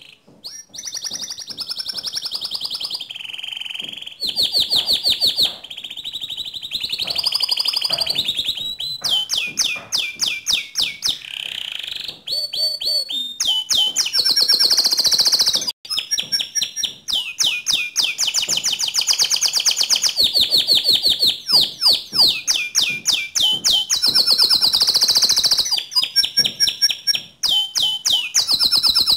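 Domestic canary in full, vigorous song: long phrases of rapid repeated notes and trills follow one another almost without a break, with only a few short pauses.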